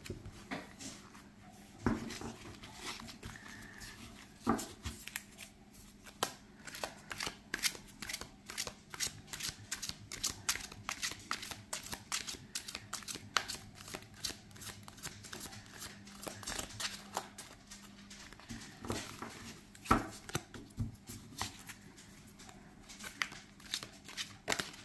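A deck of thin oracle cards being shuffled by hand: many quick, irregular clicks and slides of card on card, with a few louder snaps.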